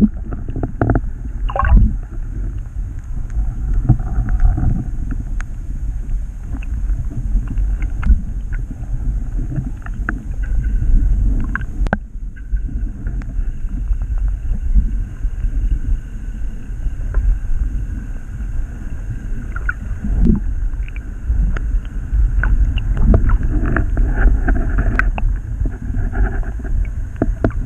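Muffled rush and slosh of river water heard through a submerged action camera, low and fluctuating, with a few sharp knocks, one of them about twelve seconds in.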